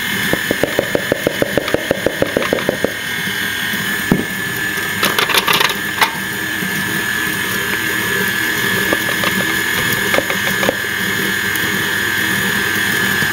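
KitchenAid Classic Plus stand mixer running with a steady motor whine, beating cookie dough as flour is added. Rapid ticking, about six a second, for the first three seconds, and a short flurry of clicks about five seconds in.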